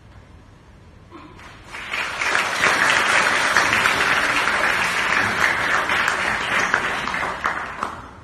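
Audience applauding. It starts about a second in, swells quickly to a full round of clapping, and dies away near the end.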